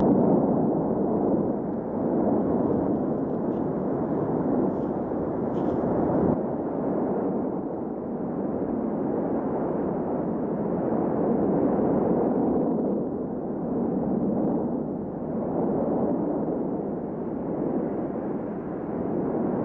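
Volcanic eruption: a continuous rush of noise that swells and eases every few seconds, with no separate blasts.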